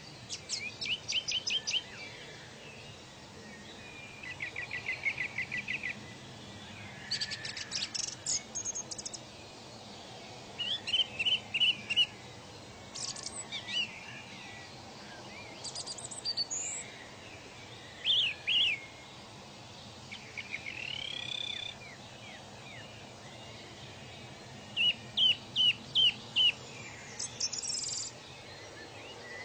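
Songbirds singing in a string of short phrases, one every couple of seconds, each a quick run of repeated chirps or a brief trill, over a faint steady background hiss.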